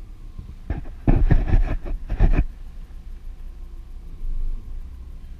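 Scania hooklift truck's diesel engine idling, heard from inside the cab. About a second in, a loud burst of clattering knocks lasts about a second and a half.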